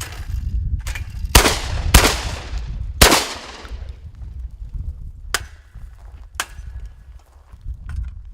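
Shotgun fired three times in quick succession at a thrown clay target, each shot sharp with a trailing echo. A few fainter clicks follow later.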